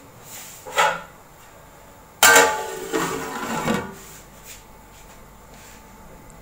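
Aluminium lid put onto a large aluminium cooking pot: a light clink about a second in, then a loud metallic clang about two seconds in that rings for more than a second, with a few smaller knocks as it settles. A faint steady hiss follows.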